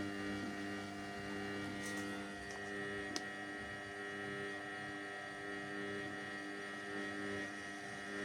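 Samsung washing machine running with a steady electrical hum, its pitch not changing, with a faint tick or two.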